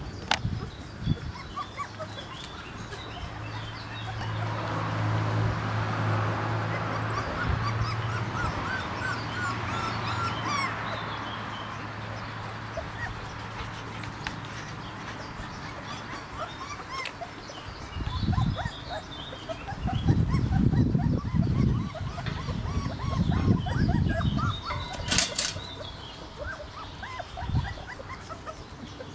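Bernese Mountain Dog puppies whimpering and yipping in short, faint squeaks as they play over their mother. A steady low hum runs through the first half, and there is a sharp sound a little before the end.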